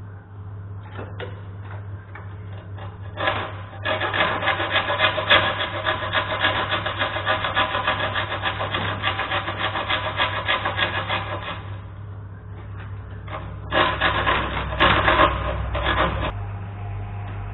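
Hand file rasping along the edge of a clear plastic sheet clamped in a bench vise, in quick back-and-forth strokes. One long bout of filing starts about three seconds in and stops near the middle; a shorter bout follows near the end, all over a steady low hum.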